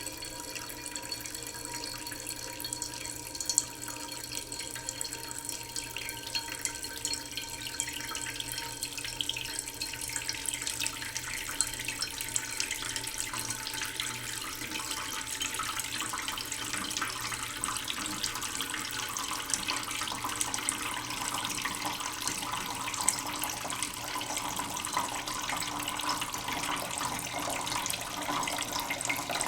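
Water running steadily from a kitchen tap into a cooking pot in the sink, slowly filling it.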